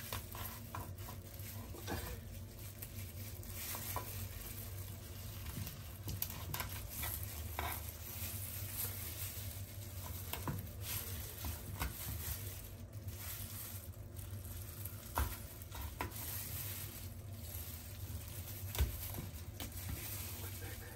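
Kitchen knife cutting raw fish on a wooden cutting board: scattered light taps and scrapes, with two sharper knocks in the second half, over a steady hiss.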